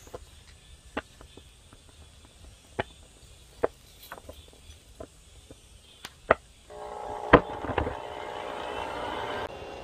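Scattered sharp clicks and pops, then about seven seconds in a steady whirring with a hum starts, typical of an electric air blower feeding a charcoal forge, with a loud knock just after it starts.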